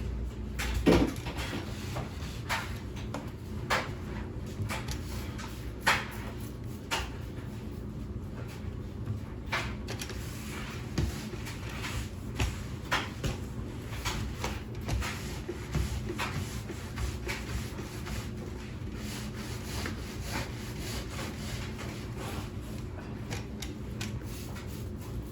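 Floor being cleaned by hand: rubbing and scrubbing with light knocks about once a second, over a low steady hum.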